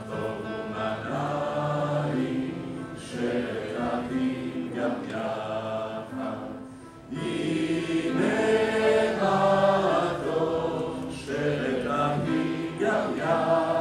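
Background music: a choir singing sustained phrases. The music dips briefly about halfway through, then comes back louder.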